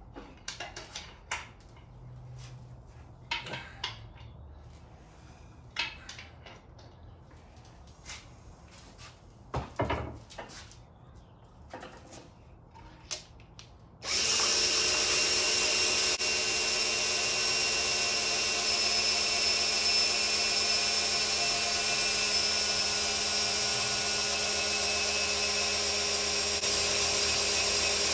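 Scattered clicks and knocks, then about halfway through a cordless drill starts and runs steadily with a constant whine, spinning the engine's oil pump through a priming tool to push break-in oil up to the lifters, pushrods and rockers.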